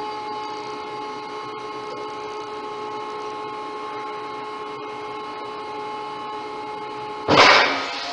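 Jungheinrich electric reach truck's hydraulic lift pump running with a steady whine as the mast extends. Near the end, a loud, brief rushing burst.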